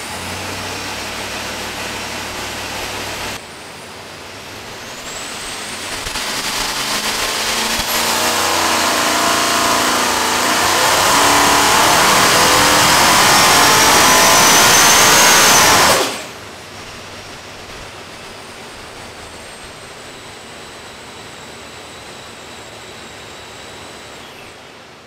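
Vortech YSI-supercharged 427 small-block Ford V8 running on an engine dyno. It runs steadily, drops back about three seconds in, then climbs for about twelve seconds in a dyno pull with a rising high-pitched supercharger whine. It cuts back suddenly about 16 seconds in to a lower, steady run with a faint high whine.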